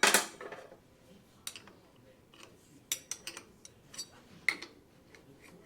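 Small metal tools and parts clinking and clattering as they are handled, with a cluster of loud clatters at the start and then scattered single clinks and ticks.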